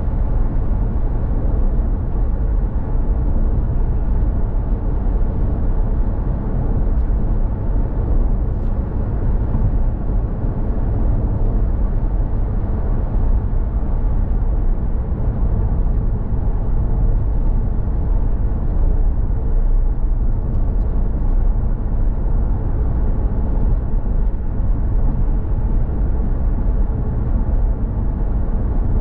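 A car driving along at steady speed: continuous road and engine noise, heaviest in the low end, unchanging throughout.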